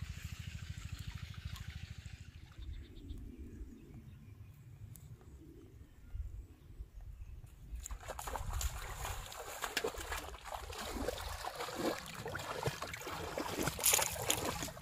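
Shallow water sloshing and splashing as a person wades through a flooded paddy field, starting about halfway through after a quieter stretch with a low rumble. The splashing grows stronger near the end as hands grope in the water.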